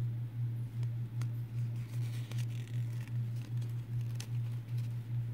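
Light clicks and crinkles of a toy's cardboard backing card and plastic packaging being handled, with a short rustle about two seconds in, over a loud low hum that pulses about four times a second.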